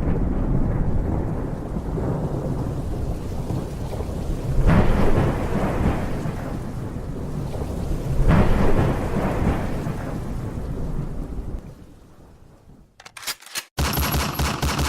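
Thunderstorm: rolling thunder over steady rain, with louder rolls swelling twice about five and eight seconds in. It fades out near the end and gives way to a quick run of crackling clicks.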